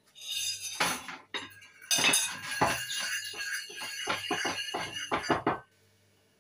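Metal spoon clinking and scraping against a ceramic bowl while stirring a sauce, with quick rapid clinks in the last second and a half before it stops abruptly.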